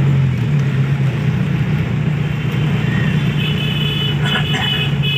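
Car engine drone and road noise heard from inside the cabin while driving in dense city traffic, with a few short vehicle horn honks about three and a half seconds in and near the end.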